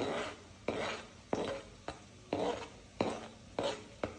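Spatula stirring chilli, curry leaves and tomato into onion in a pan of hot oil: a quick scrape against the pan about twice a second.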